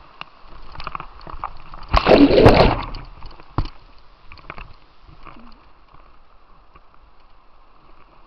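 Water sloshing and gurgling around a kayak on white water, with one loud splash of water over the boat about two seconds in and a short sharp knock a second later.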